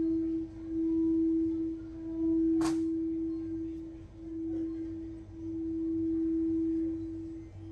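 Singing bowl sounding one steady, sustained tone that swells and fades as it is rimmed with a wand, with a single sharp tap about two and a half seconds in.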